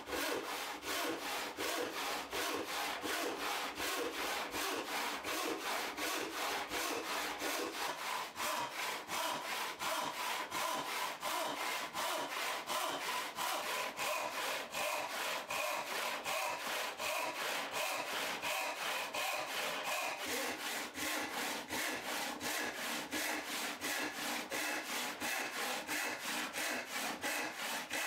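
Hand saw crosscutting a small wooden block in steady, even back-and-forth strokes, about three a second, each stroke a rasp of teeth through wood with a faint ringing note from the blade.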